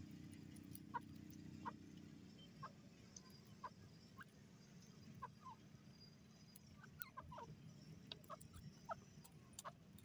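Grey francolin giving soft, short clucking notes, about a dozen scattered irregularly and coming more often in the second half, barely above a faint low background hum.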